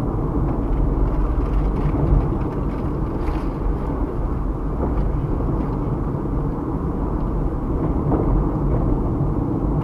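Car driving on a road heard from inside the cabin: a steady low rumble of engine and tyre noise.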